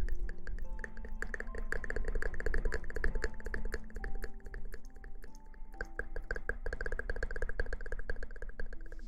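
Fast, even scratching clicks, about ten strokes a second, over soft background music of held notes.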